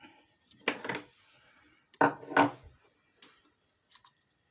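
Hard plastic knocks and clatter from a Dolce Gusto pod coffee machine's capsule holder being handled as a coffee pod is put in. It comes in two short bursts, about a second in and again about two seconds in.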